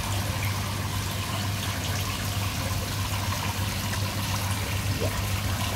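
Water running and trickling steadily into a koi pond, over a low steady hum.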